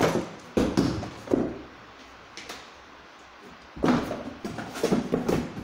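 Cardboard packing being handled on a wooden table: a cluster of knocks and rustles in the first second and a half, then a second burst of handling about four seconds in.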